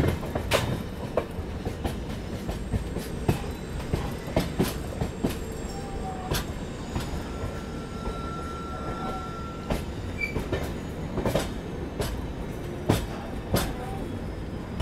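A moving passenger train heard from aboard: a steady rumble of the coaches with irregular clicks as the wheels pass over rail joints. A brief faint squeal comes near the middle.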